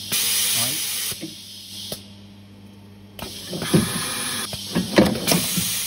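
Bench-top stripping and crimping machine for turned contacts working through its cycle: three loud bursts of hissing air, at the start, about three seconds in and near the end, with sharp mechanical clicks.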